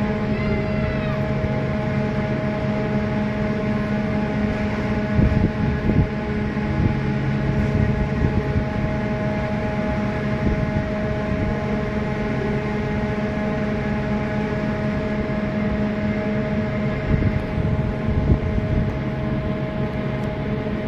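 A large cruise ship's machinery hum carrying across the harbour, a steady drone of several held tones as the ship passes. Wind gusts on the microphone a few times.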